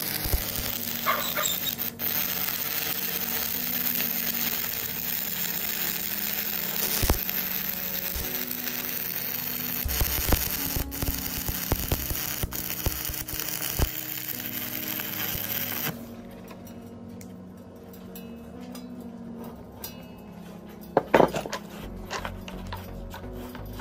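Electric arc welding on steel plate: a steady sizzling hiss from the arc that stops abruptly about two-thirds of the way in. Background music plays underneath, and two sharp clicks come near the end.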